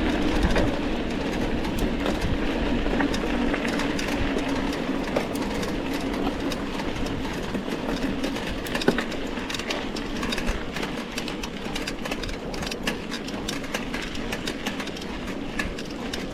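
Mountain bike rolling over a rough dirt trail: steady tyre and trail noise with frequent small clicks and rattles from the bike.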